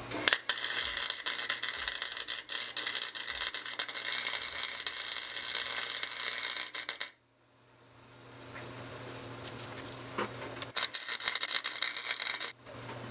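Electric arc welding on steel tubes: the arc sizzles and crackles steadily for about seven seconds, then stops. After a pause with a faint low hum, a shorter weld crackles for under two seconds before the end.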